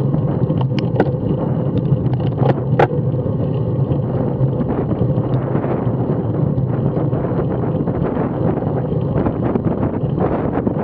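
Wind buffeting the microphone of a camera on a moving road bike, over a steady rumble of tyres on tarmac. A few sharp clicks in the first three seconds.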